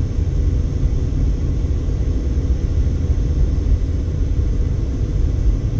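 Steady low rumble of road and tyre noise inside a moving Mercedes-Benz car's cabin, driving at town speed.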